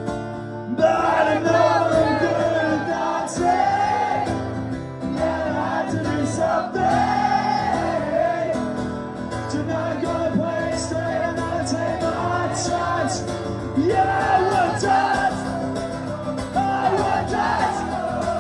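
Live acoustic guitar and male singing, with the audience shouting and singing along.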